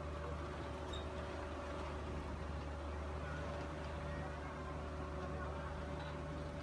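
Passenger ferry's engine running steadily aboard, a constant low hum with a steady higher whine, over a haze of wind and wave noise.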